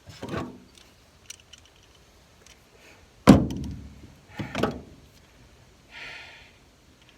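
Hand tools knocking against the truck bed while working on a pickup bed bolt: three sharp knocks, the loudest about three seconds in, with small clicks between and a short hiss near the end.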